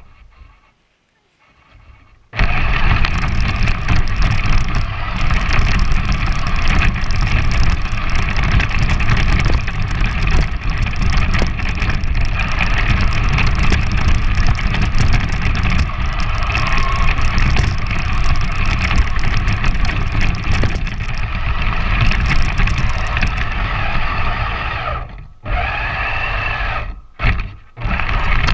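Large electric RC 4x4 truck driving through snow, heard from a camera mounted on the truck: after about two seconds of quiet, the motor and gear whine starts with a heavy rumble and runs steadily, cutting out briefly twice near the end.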